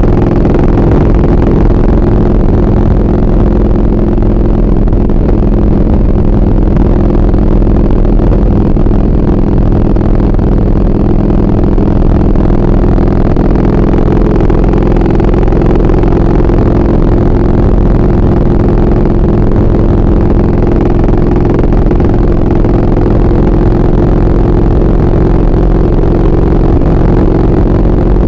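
2003 Harley-Davidson Heritage Softail's V-twin engine running steadily at cruising speed, heard from the saddle together with the rush of wind.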